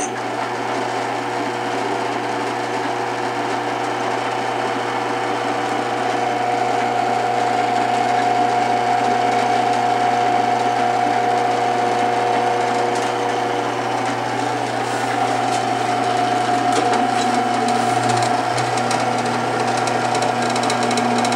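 Freshly assembled Klutch 13-inch, 3/4 hp floor drill press switched on with a click and running under no load: a steady motor hum with a whine from the spinning belt, pulleys and chuck. It cuts off abruptly at the end when switched off.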